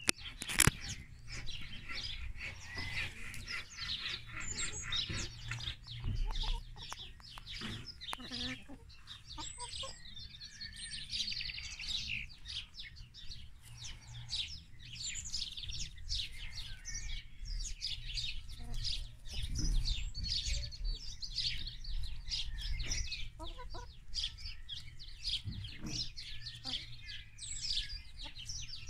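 Domestic hens clucking now and then as they forage, with small birds chirping busily throughout and a low rumble underneath.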